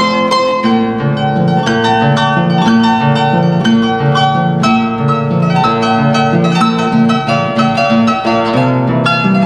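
Harp played live: a fast plucked melody over a bouncing, repeating bass line, in the style of a Paraguayan galopera.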